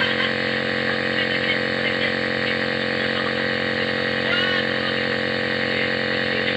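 A steady machine hum made of several fixed tones, with faint voices in the background.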